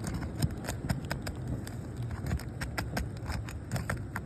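Roof snake being pried under a roof shingle to break its seal strip: an irregular run of sharp clicks and crackles as the sealant lets go, tearing and damaging the shingle.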